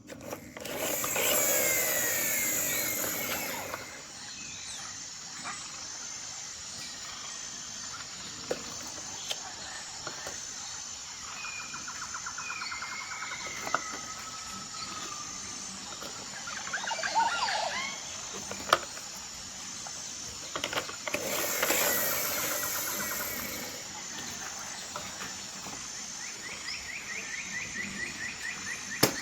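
Outdoor ambience with birds chirping and trilling. Two spells of loud hiss come near the start and again about three-quarters of the way through, with a few sharp clicks in between.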